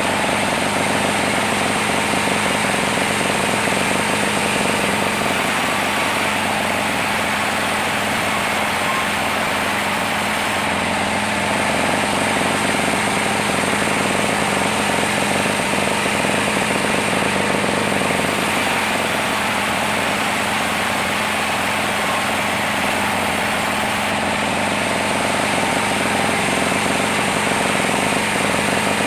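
Sawmill machinery running with a loud, steady drone, its tone shifting slightly a few times.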